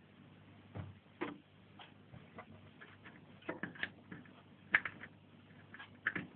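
Irregular light clicks and taps of computer hardware being handled and fitted by hand, the sharpest one a little past halfway, over a faint steady low hum.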